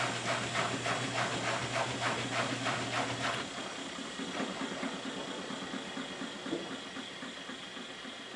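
Miele front-loading washing machine draining: a steady low pump hum and water swishing in the turning drum, about three pulses a second. Both cut off about three and a half seconds in, leaving the quieter sound of the drum motor running.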